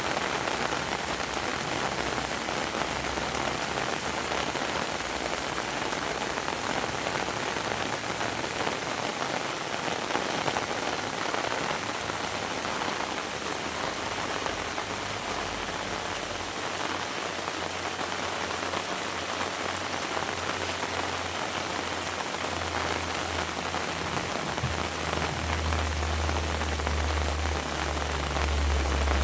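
Heavy rain falling steadily. A low rumble builds from about halfway through and is strongest near the end.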